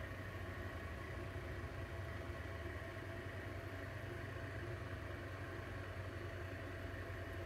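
Steady low machine hum with a few faint steady tones above it, unchanging throughout.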